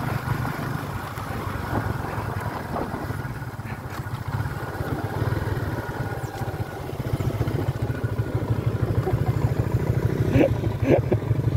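Yamaha Jupiter MX King 150's single-cylinder four-stroke engine running under way, a rapid low pulsing that grows louder over the last few seconds.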